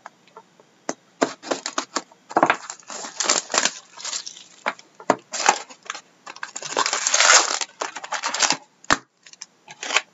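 Plastic shrink-wrap torn off a cardboard trading-card hobby box and the box torn open: irregular crackling and crinkling, with a longer tearing stretch about seven seconds in and a single sharp knock near the end.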